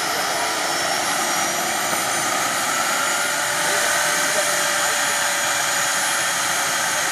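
JetCat SPT 15 model turboprop running with its propeller turning: a steady turbine whine with several high tones, some rising slightly in pitch a couple of seconds in.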